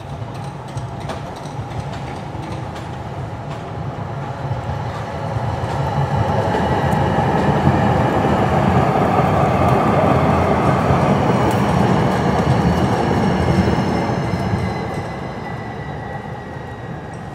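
Siemens S70 light rail train approaching and passing close by: a rumble of steel wheels on the rails with a motor whine over it, swelling to its loudest in the middle and fading near the end, the whine sagging a little in pitch as it goes by.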